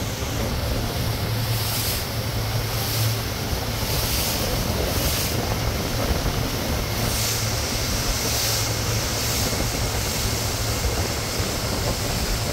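Motorboat engine running with a steady low hum at speed, under wind buffeting the microphone and the rush of water past the hull.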